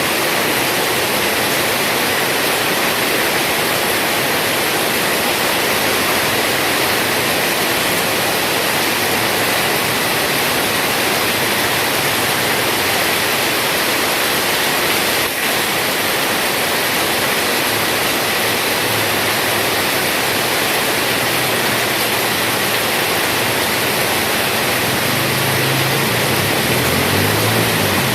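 Heavy rain falling, a steady dense hiss. A low hum rises underneath it in the last few seconds.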